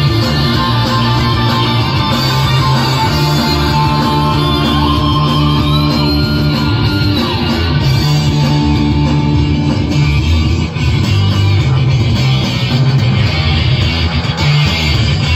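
Loud guitar-driven rock music with heavy bass, played through a large outdoor sound-system rig. One note slides up about five seconds in and falls back about two seconds later.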